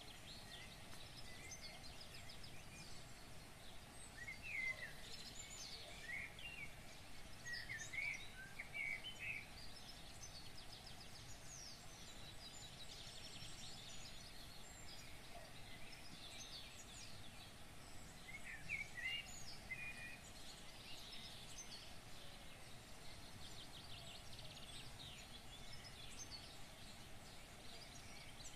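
Birds chirping and calling on and off in short clusters, faint, over steady outdoor background noise.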